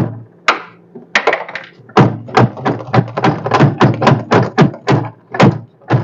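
Cordless drill-driver with a quarter-inch socket bit backing out the screws of a refrigerator's evaporator cover. It gives a rapid run of sharp clicks, about five a second, with a couple of short pauses, over a low motor hum.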